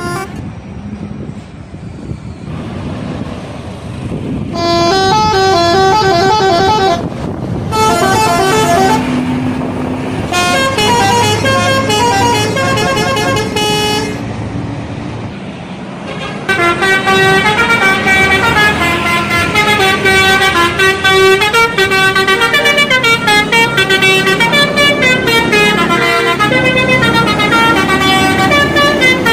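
Indonesian bus telolet horn: a multi-tone air horn playing quick melodic runs of stepped notes. It comes in three short bursts after a few seconds of road noise, then plays continuously through the second half.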